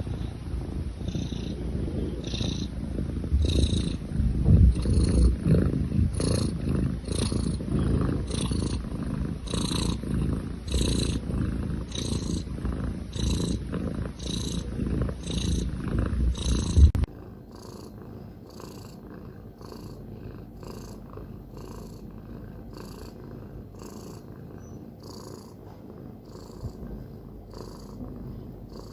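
Domestic cat purring close up: a deep rumble that pulses evenly with each breath in and out. About 17 seconds in it cuts suddenly to a quieter purr with the same rhythm.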